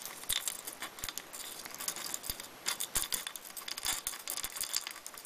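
A toothbrush scrubbing steel springs and drilled brass plugs from a suppressor in a bowl of acetone: irregular scratchy brushing with small metallic clicks and clinks as the parts knock together.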